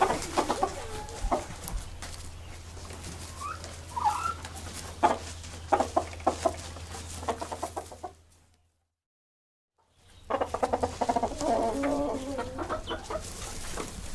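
Domestic chickens clucking, with scattered sharp dry crackles. The sound cuts out completely for about a second and a half just past the middle, then the clucking and crackles start again.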